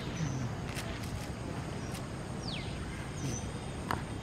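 Repeated short, high-pitched animal cries, each falling steeply in pitch, every second or two, over a steady outdoor background with a few faint clicks.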